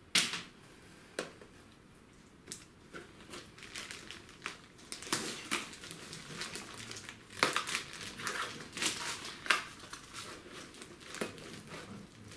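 Clear plastic packaging film crinkling and rustling as it is handled and pulled away, in irregular crackles with a few louder snaps.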